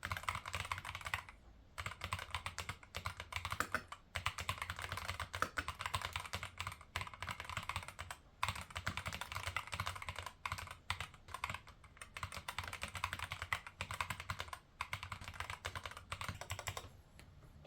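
Rapid, continuous typing on an EPOMAKER TH80-X mechanical keyboard fitted with EPOMAKER Flamingo switches, with a few brief pauses. Swapped in for Gateron Black switches, the Flamingos sound louder.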